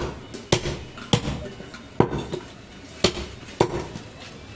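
Heavy butcher's cleaver chopping through goat (mutton) ribs into a round wooden chopping block: a series of sharp chops, roughly one or two a second, unevenly spaced.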